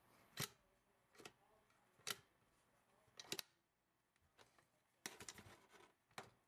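Metal parts of an M+M M10X rifle clicking and clacking as the bolt carrier is worked in the receiver and the upper and handguard are fitted together: four sharp clicks about a second apart, then a quick run of clicks about five seconds in.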